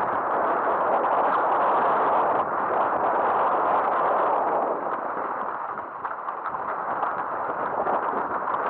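Mountain bike rolling fast down a loose gravel and rock trail: a steady rushing crunch of tyres on stones with rattling of the bike, mixed with wind on the camera microphone. It is a little louder for the first half and eases somewhat about five seconds in.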